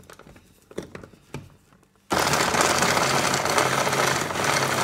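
A few faint clicks, then about two seconds in an electric hand blender's motor switches on and runs steadily in its chopper bowl attachment, the blades chopping marinated pearl onions, fried onion and yellow pepper into a paste.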